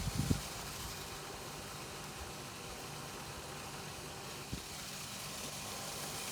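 Steady background hiss with a faint low hum, and a few dull low thumps at the start and once more about four and a half seconds in.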